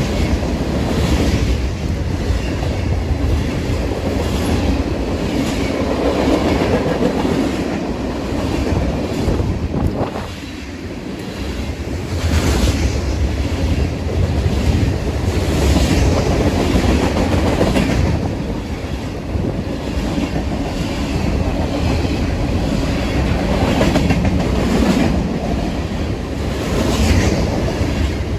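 Train passing close by: a steady rumble of wheels on rail with repeated clacks as the wheel sets cross rail joints, every second or two.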